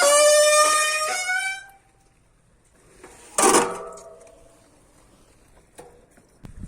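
Bicycle brake squealing in a loud, steady, pitched tone that fades out over the first second and a half or so. About three and a half seconds in, a second, shorter squeal starts sharply and dies away within about a second, followed by a couple of faint ticks near the end.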